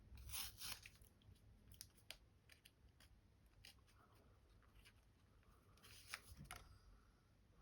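Faint crinkling and tearing of a wet-wipe sachet being opened and handled, heard as a few short scattered crackles and ticks.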